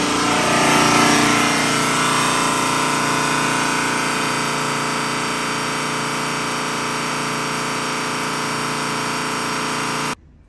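VW T4 2.5 TDI five-cylinder diesel engine held at a steady 3500 rpm during a fuel-pump transfer-pressure test. The sound cuts off suddenly near the end.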